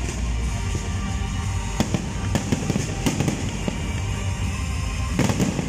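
Aerial fireworks going off: irregular sharp bangs and crackle over a steady low rumble, with a quick cluster of bangs near the end.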